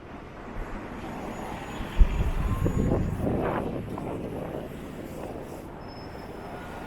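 Street noise of a vehicle passing, swelling and then fading over a few seconds, with a sharp low thump of wind buffeting the microphone about two seconds in.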